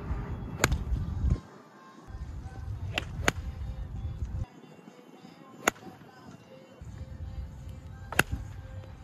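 Sharp clicks of iron golf clubs striking golf balls off turf, about six in all, two close together around three seconds in and two more near the end.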